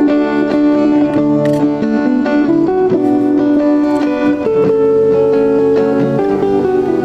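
Background music led by a plucked guitar, playing held notes that change about every second.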